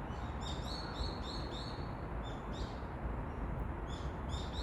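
Birds chirping in short, high, repeated calls that come in a few clusters, over a steady low rumble of background noise.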